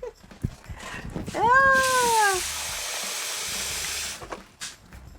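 A cat meows once, a drawn-out call that rises and then falls in pitch, about a second long. A steady hiss starts with it and runs for about three seconds before stopping.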